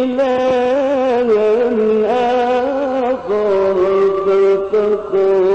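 A male Quran reciter's voice in melodic mujawwad recitation, drawing out long ornamented notes through a microphone. The pitch wavers, then drops about three seconds in onto a long held note.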